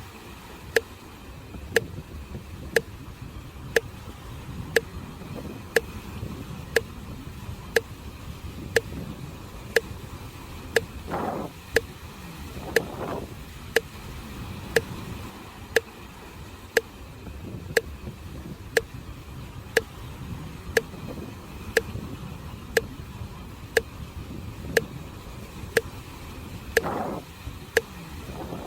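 Sharp, regular ticks about once a second over a low, steady rush of sea waves, with a few brief swelling whooshes of surf.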